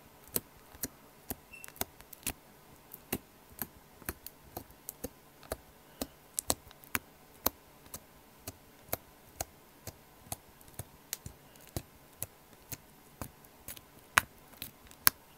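Slime being worked by hand for ASMR, making sharp, sticky clicks and pops a few times a second at irregular spacing, with two louder pops near the end.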